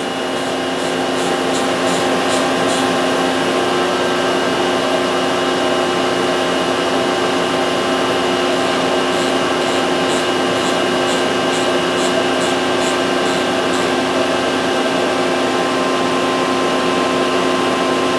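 Steady hum of an Excel CNC vertical machining centre with the spindle stopped, from its fans, pumps and drives, with several fixed tones. Two runs of faint, regular ticks, about three a second, come through it, one at the start and one in the middle.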